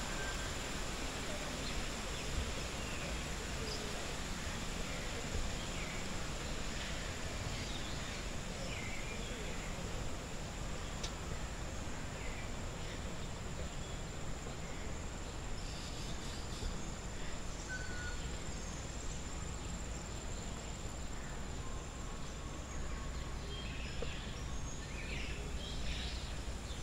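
Aviary ambience: a steady background hiss with scattered short bird chirps and calls, more of them near the end.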